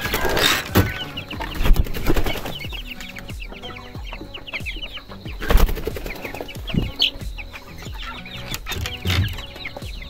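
Young white Shamo chickens peeping and clucking in a wooden coop, with many short, high, falling chirps and a few loud knocks and thumps as they are lifted out.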